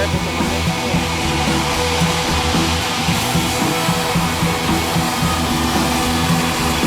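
Background music, steady and loud.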